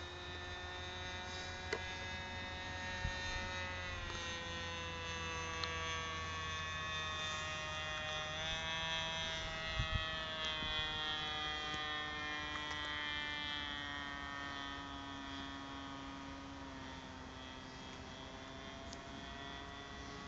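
Motor of a radio-controlled model aeroplane droning high overhead, its pitch drifting slowly down and up as the plane flies around.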